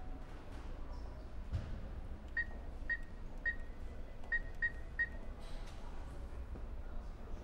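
Cash machine keypad beeping six times, short high beeps as keys are pressed to enter a PIN, over a low steady hum. A soft thump comes about a second and a half in.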